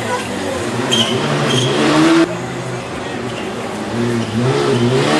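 Rally car engine at full throttle, its pitch climbing and dropping with gear changes. It is loudest for about a second before dropping away sharply a little over two seconds in, then rises again near the end.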